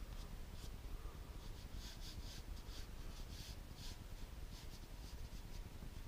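Paintbrush dragged across textured watercolour paper in a dry-brush technique: a run of short scratchy swipes, most of them close together between about two and four seconds in.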